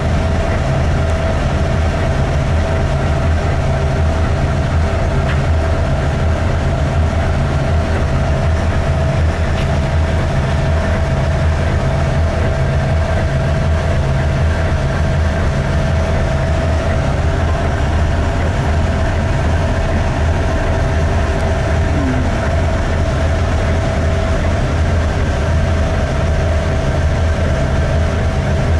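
Container ship's Hyundai diesel engine running steadily and loud, with a low rhythmic pulse and a steady tone above it, in the engine room.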